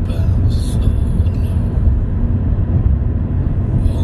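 Steady low rumble of a car's tyres and engine at highway cruising speed, heard from inside the cabin.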